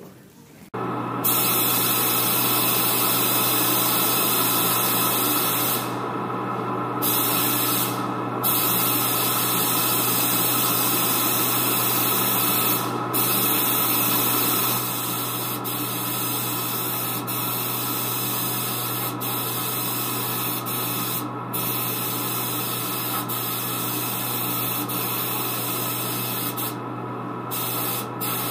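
Gravity-feed paint spray gun spraying orange enamel: a steady hiss of air and paint, broken by a few brief pauses where the trigger is let off, around six and eight seconds in and near the end. A steady low hum runs underneath.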